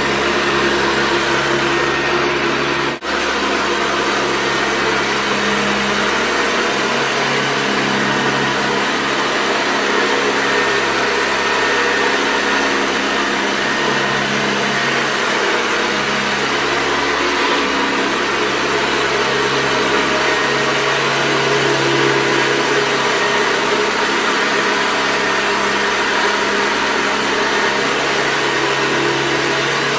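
Vintage Hoover Convertible U4193 upright vacuum cleaner running steadily: a motor hum under a loud rush of air, with a brief break about three seconds in.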